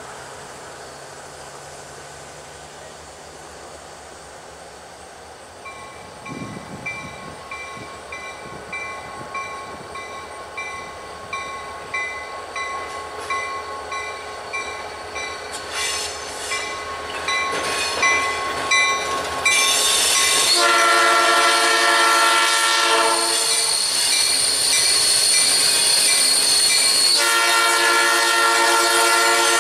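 Approaching diesel freight train. A bell rings in a steady beat of about one and a half strikes a second from about six seconds in, while the train's noise grows louder. Then the locomotive's horn sounds a long blast, and a second long blast starts near the end.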